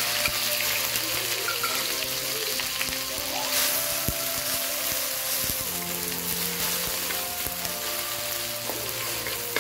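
Pounded ginger, garlic, shallot and chili paste sizzling steadily in hot cooking oil in a wok as it is sautéed and stirred with a wooden spatula.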